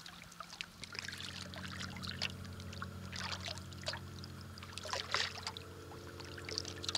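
Kayak paddle strokes splashing and dripping water, a few irregular strokes, over a steady low hum that begins about a second in.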